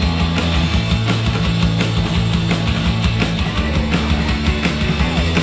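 Rock band playing live, with electric and acoustic guitars, bass guitar and busy drums.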